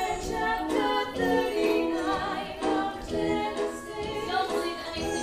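Live musical-theatre singing: several women's voices singing together in a stage number, with held, wavering notes.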